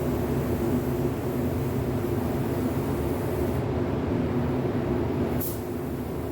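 Electric fan running with a steady humming drone, left on to help fresh paint dry. A brief high hiss sounds once, near the end.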